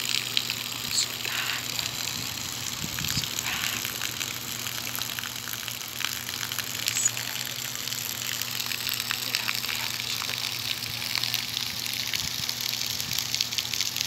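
A thin jet of fountain water falling and splashing steadily onto stones at the lagoon's edge, an even hiss of falling water over a low steady hum.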